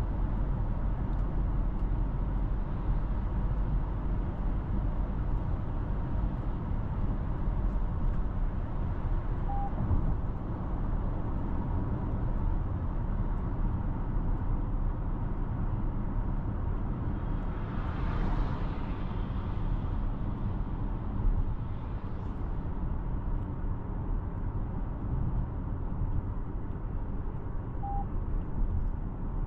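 Toyota Corolla Cross driving: a steady low rumble of engine and road noise. A swell of noise rises and falls about eighteen seconds in, a smaller one near twenty-two seconds, and two brief faint beeps sound at about ten and twenty-eight seconds.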